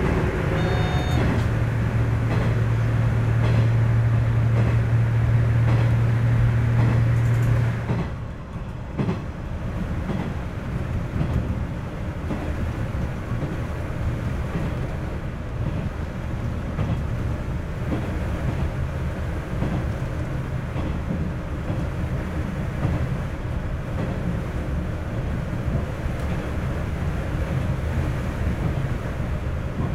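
Tosa Kuroshio Railway 9640-series diesel railcar running along the line: steady engine drone and wheel-on-rail noise. A strong low hum stops about eight seconds in, and the running noise carries on quieter.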